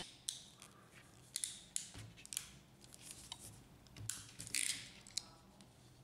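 Hand crimping tool squeezed onto a fibre optic connector's crimp sleeve: a series of faint, uneven clicks and small mechanical snaps from the tool's jaws and handles.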